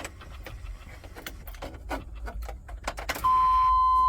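Keys and small hard parts rattling and clicking for about three seconds. Then a loud, steady beep starts and holds without a break.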